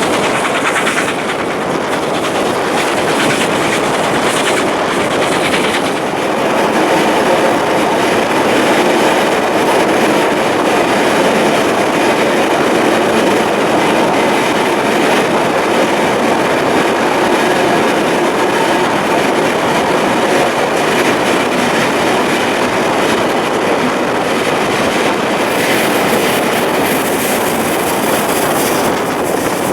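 Steam-hauled passenger train running on the rails, a loud, steady rumble of wheels and carriages.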